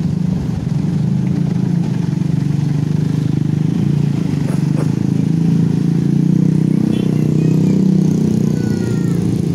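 Mitsubishi Fuso light truck's diesel engine running at low speed close by as the truck manoeuvres: a steady low drone. Small motorcycle engines pass as well.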